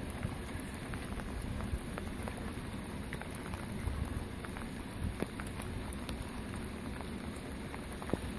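Steady rain falling, with scattered sharp ticks of drops hitting close by.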